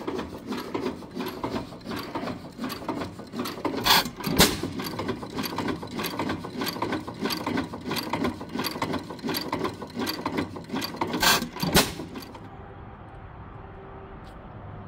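12 HP Witte single-cylinder hit-and-miss engine running, its valve gear and mechanism clattering in an even ticking rhythm. Two loud bangs come about four seconds in and two more about eleven seconds in, where it fires. A little after twelve seconds it gives way to a quieter steady outdoor background.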